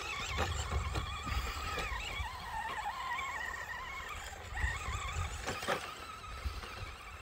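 Electric motor of a Carson Mega Duster RC monster truck whining as it drives over sand, the pitch wavering up and down with the throttle, over a low rumble of wind on the microphone and a few short knocks.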